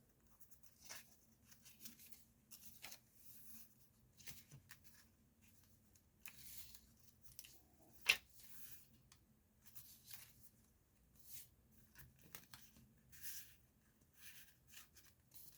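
Paper pages of a handmade junk journal being turned and handled: faint, scattered rustles, with one sharp tap about eight seconds in.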